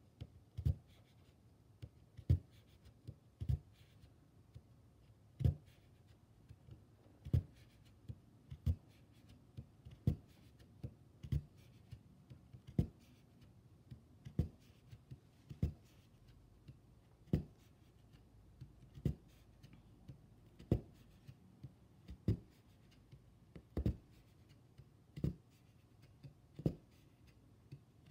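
Oxford punch needle stabbing wool yarn through monk's cloth stretched on a frame: a steady series of soft thuds, about one every second and a half, with fainter scratches of the needle gliding along the fabric between them.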